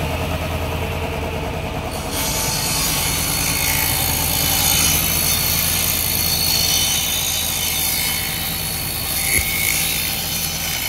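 Table saw running smoothly with a steady motor hum. About two seconds in, its circular blade starts cutting through a plywood board, and the loud, even cutting noise lasts until just before the end.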